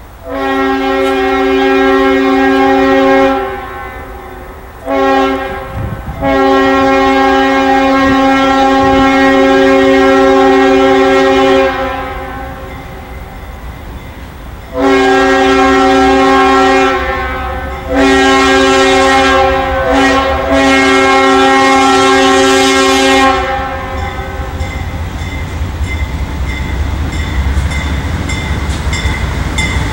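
Multi-chime horn of an approaching CSX freight locomotive. It sounds a long blast, a short one and a long held blast, then after a pause three more long blasts, each a chord of several pitches. After the horn the low rumble of the train grows as it draws near, with wheel clicks over the rails near the end.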